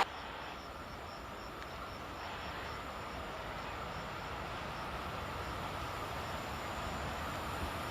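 EU07-class electric locomotive hauling loaded coal wagons, approaching from a distance: a low steady rumble that grows slowly louder. A faint high chirp repeats about three times a second.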